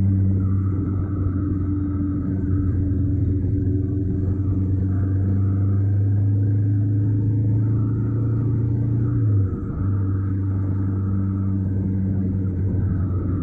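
Honda NC750X's parallel-twin engine droning steadily at cruising speed, with road and wind noise, heard close to the front wheel. The drone briefly dips and breaks about nine and a half seconds in.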